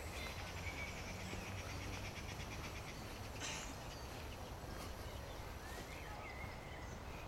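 Birds chirping and trilling over a steady low rumble. About three and a half seconds in, a short swish as a golf iron is swung through the ball and turf.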